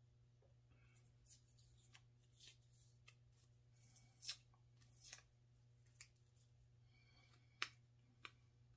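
Faint crackling and rustling of clear tape and a paper pattern being peeled by hand off small scroll-sawn wooden letters: a scattered string of short crinkles and ticks, the sharpest a little past the middle and near the end, over a steady low hum.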